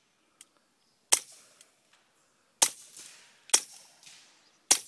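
Walther P22 .22 pistol fitted with an AAC Aviator suppressor firing four single shots at an uneven pace, each a short sharp crack with a brief fading tail.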